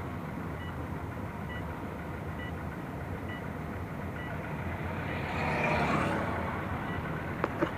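Steady engine and road noise of a moving car heard from inside, with a faint electronic beep repeating a little faster than once a second. A rush of noise swells and fades about five to six seconds in.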